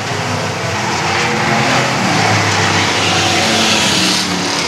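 Several short-track race car engines running hard at the same time as the cars lap the oval, their overlapping engine notes wavering up and down.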